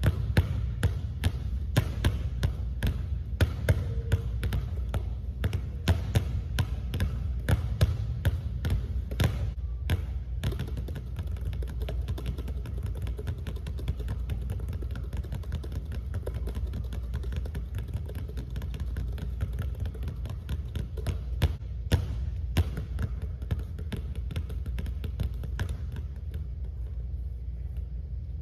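Two basketballs dribbled rapidly on a hardwood gym floor, a fast, uneven patter of bounces over a steady low hum. The bounces get softer from about ten seconds in as the dribbles go low to the floor.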